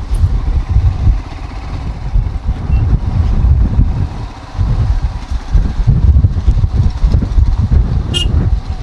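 Motorcycle on the move with heavy, gusting wind buffeting on the microphone.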